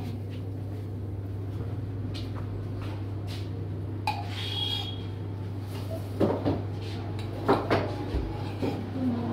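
Scattered knocks and clinks of cups and utensils handled at a café espresso machine, with a short ringing clink about four seconds in and the loudest knocks in the second half, over a steady low hum.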